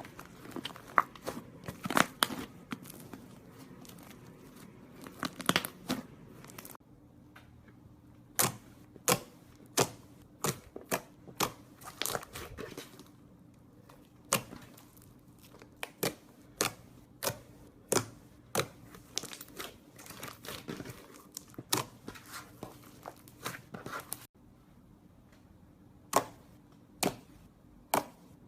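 Slime being squeezed and pressed by hand, making sharp popping and crackling clicks: a dense crackle at first, then single pops about once a second.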